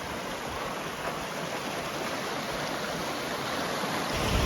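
Creek running, a steady rush of flowing water fed by seasonal runoff. A low rumble joins near the end.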